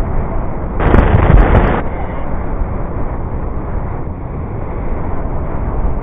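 Wind rushing over the microphone in paraglider flight: a steady low rumble of buffeting, with a louder gust about a second in that lasts about a second.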